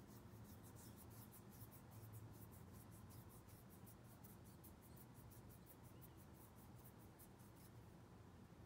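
Near silence, with faint, rapid, scratchy high-pitched ticks, several a second, that fade out near the end.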